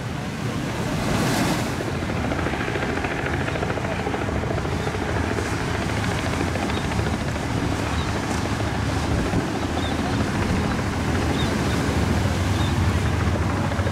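Boat outboard engines running at speed through choppy inlet water: a steady engine drone over splashing water and wind on the microphone, with a brief louder rush of spray a little over a second in.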